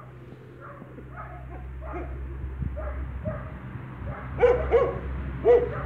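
Light Brahma chickens clucking in short, repeated calls, with three louder calls near the end.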